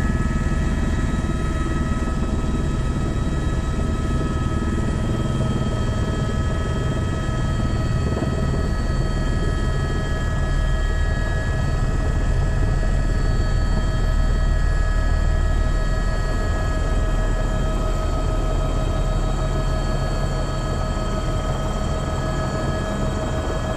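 Helicopter heard from inside the cabin on a low approach to land: a steady turbine whine over the rotor's low, rapid beat.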